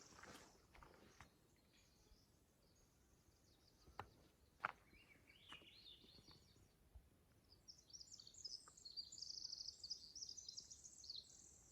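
A songbird sings faintly, a long, rapid, high-pitched run of tumbling notes in the second half, with a few soft high chirps before it. Two faint clicks come a little before the middle.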